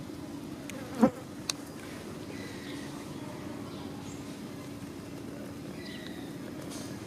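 A steady low buzz, with a sharp knock about a second in and a smaller click half a second later.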